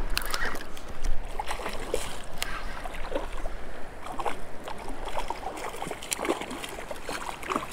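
Water splashing irregularly as a hooked bluefish thrashes at the surface in shallow surf, over the wash of small waves.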